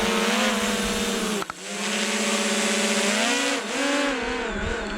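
DJI Mavic Air 2 quadcopter drone's propellers and motors whining steadily in flight, the pitch sliding up and down as the drone manoeuvres; the sound dips briefly about a second and a half in.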